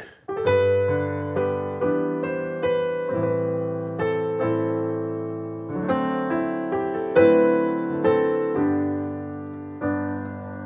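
Nord Stage 3 digital piano playing the first line of a hymn melody in sustained chords, reharmonized with passing chords. A new chord is struck every half second to a second, and the last chords are left to ring and fade.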